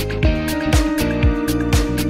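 Background music: an upbeat track with a steady beat of about two strokes a second under held notes.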